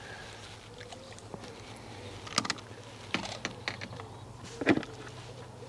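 Fishing tackle being handled as a float rod is lowered onto its rest: a few sharp clicks in the middle and a single knock near the end.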